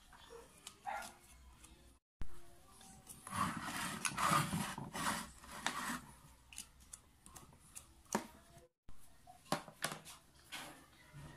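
Handling noise from a disassembled electric water pump motor being turned over and moved about on a table: scattered clicks and knocks, with a longer stretch of rubbing and scraping in the middle that is the loudest part.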